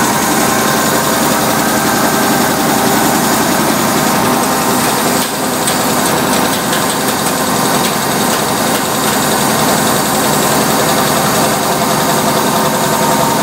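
Antique WWII high-pressure torpedo/dive air compressor running steadily, driven by its V8 engine.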